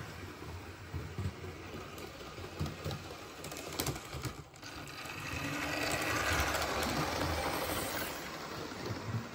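Model HST train running on the track, its small electric motor and wheels whirring, with scattered light clicks in the first few seconds. The whirr grows louder from about five seconds in as the train comes close, then eases off near the end.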